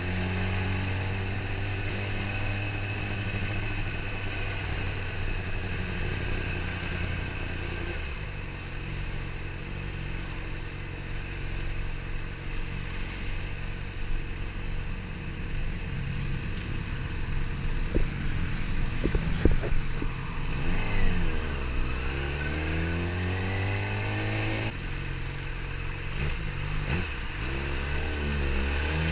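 Yamaha R6 600cc inline-four engine running at low road speed, its note dipping and rising several times as the throttle is closed and opened. A short run of sharp clicks or knocks sounds a little after halfway.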